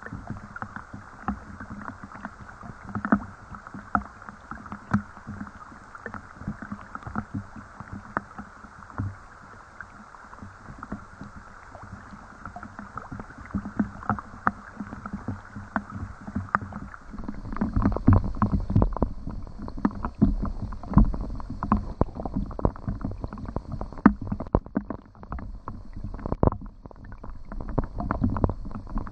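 Rain falling, with many close, irregular drops ticking and splashing. About 17 seconds in, a low rumble joins and the drops grow louder and denser.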